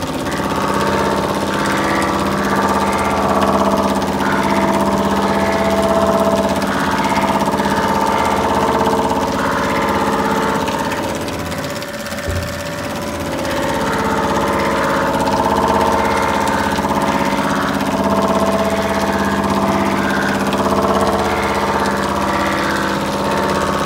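Cylinder head resurfacing machine running, its rotating wheel cutting across the face of a Perkins four-cylinder diesel head under a coolant spray: a steady machine hum with held tones, swelling and easing as the head passes under the wheel. The sound drops briefly with a knock about halfway through, where the head is clear of the wheel.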